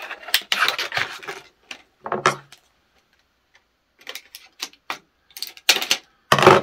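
Stiff plastic clamshell packaging crackling as it is worked open, then metal kitchen shears clicking and clacking as they are handled, with a few sharp clicks near the end.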